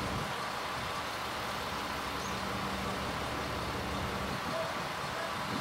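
Diesel railcars idling while stopped at a station platform: a steady engine hum with no change in pitch.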